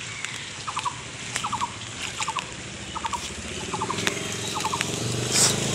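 A small animal's chirping call, three or four quick notes at a time, repeating about every 0.7 seconds. From about four seconds in, an engine's low hum rises underneath, and there is one sharp click near the end.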